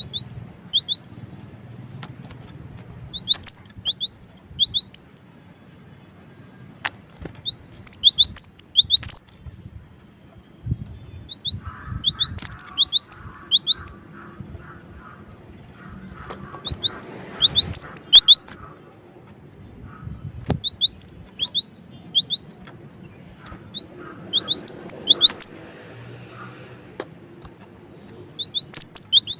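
Cinereous tit (gelatik batu) singing: short phrases of three to five quick, high, sharp notes, repeated about every three to four seconds.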